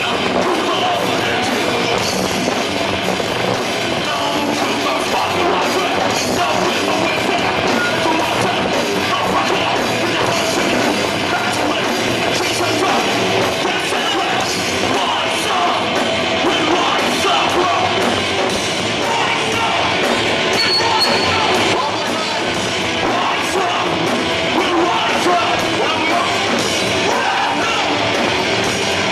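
A rock band playing live, loud and continuous: electric guitars and drums with the singer's vocals through the PA, heard from among the audience.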